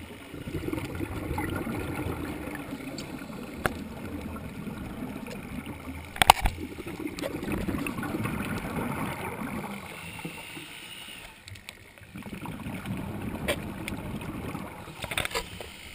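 Scuba regulator exhaust bubbles gurgling underwater in long surges as a diver breathes out, easing between breaths. A few sharp knocks, the loudest about six seconds in.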